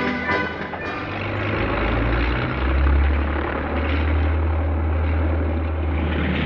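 Propeller aircraft engines running, a noisy rush with a steady low drone that settles in about two seconds in, as orchestral music fades out at the start.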